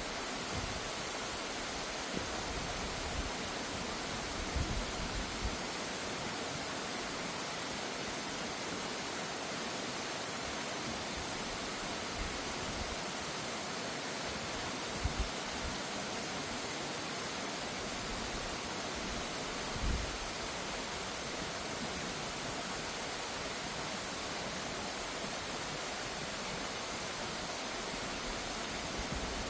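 Mountain valley stream rushing over rocks, a steady even rush of water, with a few soft low thumps now and then.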